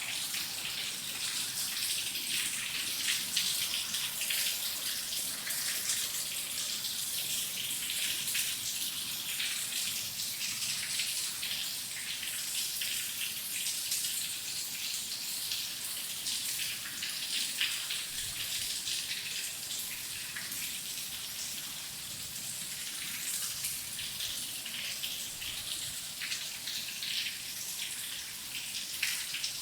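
Steady rain falling, a dense stream of individual drop hits over an even hiss, strongest in the high range.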